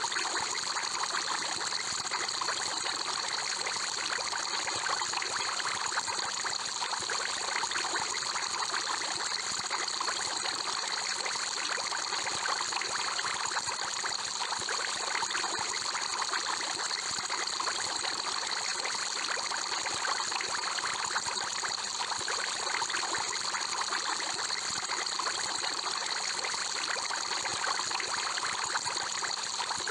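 Aquarium water bubbling and trickling steadily, as from an air-stone bubble column, with a faint steady hum underneath.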